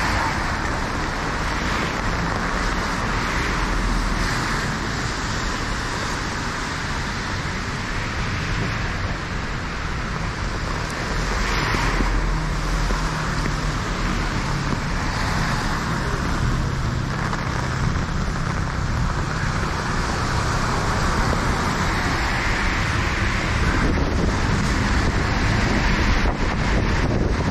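City street traffic on a wet road: a steady hiss of tyres and passing cars with a low rumble, and wind on the microphone.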